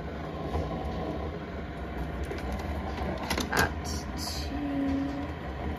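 Keurig single-cup coffee maker heating its water: a steady low hum, with a few brief soft sounds a little past three seconds in.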